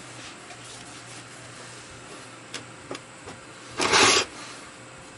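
Small three-jaw lathe chuck handled on a wooden workbench: a couple of light clicks, then about half a second of loud scraping near the end as the steel chuck is turned on the bench top.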